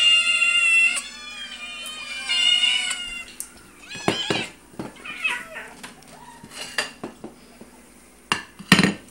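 Cats and kittens meowing in a run of high, wavering cries for the first three seconds, then shorter scattered mews. Sharp knocks and bumps come through the middle, with a loud knock near the end.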